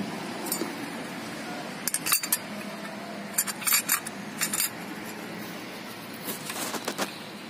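Metal clutch plates and rings of a Carraro transmission clutch pack clinking against each other and the steel clutch drum as they are fitted by hand, in several short clusters of sharp metallic clicks.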